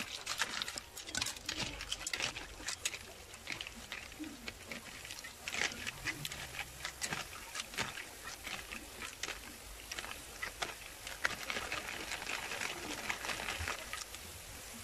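Metal ladle stirring shell-on freshwater snails in coconut milk in a metal wok: irregular clicking and clattering of shells against the pan and ladle. A hiss from the simmering pot grows near the end.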